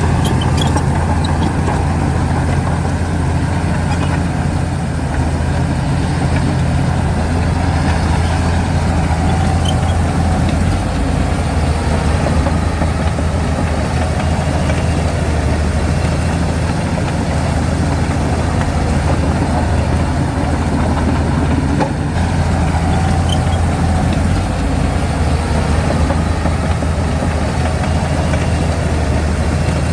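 Heavy diesel engine of a Shantui DH17C2 bulldozer running steadily at a constant speed.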